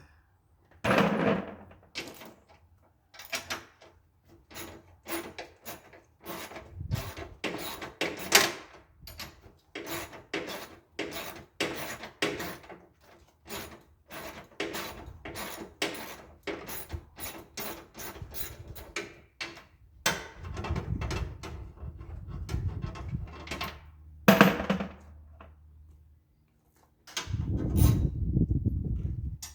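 Hand tools and loose metal parts being worked during the strip-down of a lawn tractor: a long run of quick clicks and knocks, a few louder clanks, and two stretches of low rumbling scraping near the end.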